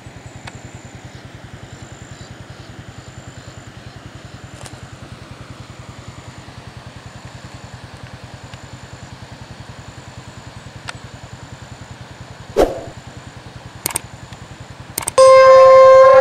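A steady, evenly pulsing engine hum, like a small engine idling, with a knock and a couple of clicks near the end. About a second before the end, a loud, flat, horn-like tone starts and holds.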